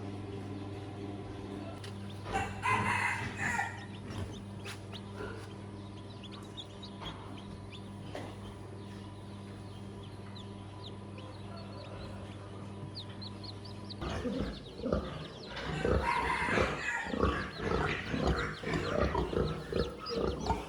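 A rooster crows once, about two seconds in, over a steady low hum. About two-thirds of the way through, the sound changes to a busy run of short farm-animal calls, clucking among them, mixed with scuffling knocks.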